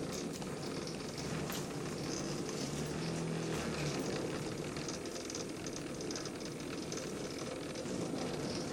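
CNC plasma table's gantry motors driving a vinyl-cutting knife across the sheet: a steady machine noise with a low hum that starts and stops as each move changes.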